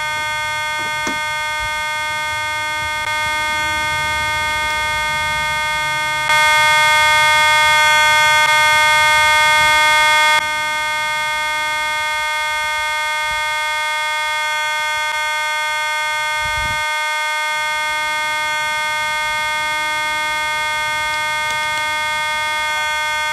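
Fire alarm horns, among them a Pyrotronics B2-series horn, sounding a continuous steady electronic tone. It gets louder twice and drops back, with one low thump about two-thirds through, and cuts off suddenly at the end. Very loud.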